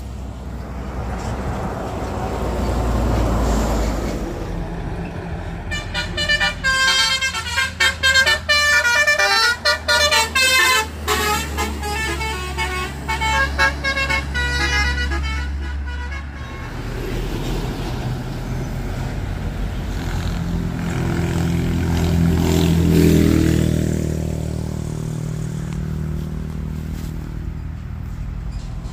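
Heavy road traffic with a steady engine rumble. From about six seconds in, a multi-tone vehicle horn sounds a rapid run of changing notes for about ten seconds. Near the end another engine passes close, swelling and fading.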